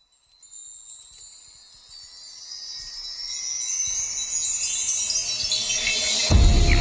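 Opening of a pop remix track: high, bell-like ringing tones drifting slowly downward and swelling in level, with a deep bass beat dropping in near the end.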